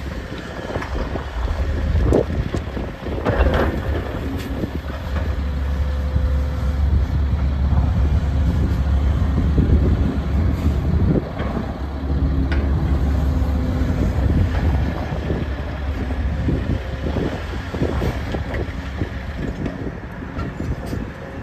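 Link-Belt 490 X4 crawler excavator's diesel engine running under load while it digs and loads dirt, heaviest through the middle. Scattered knocks and clatter from the bucket and dirt.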